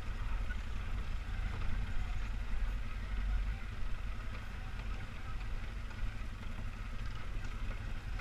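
A 2003 Polaris Sportsman 500HO 6x6 ATV's single-cylinder four-stroke engine running steadily at low speed while the machine crawls over a rocky trail.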